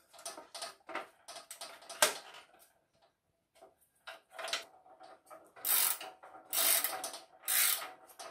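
Metal knocks and clicks as a PAR 56 lighting can is fitted onto a lighting stand's bar, with one sharp knock about two seconds in. From about halfway, a hand ratchet tightens the can's mounting-clamp bolt in repeated rasping strokes, roughly one a second.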